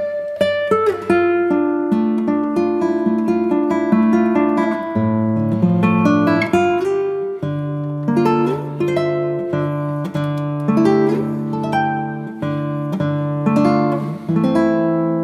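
Background music: acoustic guitar plucking and strumming a gentle melody.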